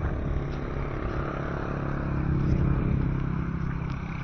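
A vehicle engine running at a steady low pitch, growing a little louder about halfway through and then easing off.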